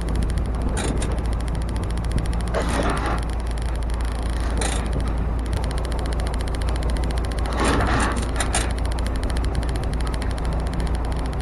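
A truck on the move: a steady low engine and road rumble, with short hissing surges about a second in, around three seconds, near five seconds and near eight seconds.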